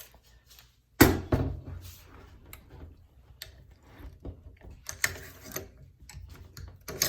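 Metal clicks, knocks and scraping from AR-15 rifle parts being handled, with a sharp knock about a second in and another cluster of clicks near five seconds, as the rifle is taken apart to get the original bolt carrier out.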